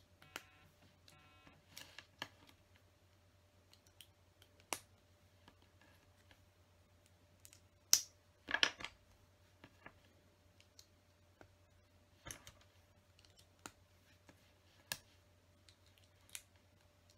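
Plastic LEGO bricks clicking as they are handled and pressed together: scattered sharp clicks, the loudest about eight seconds in, over a faint steady hum.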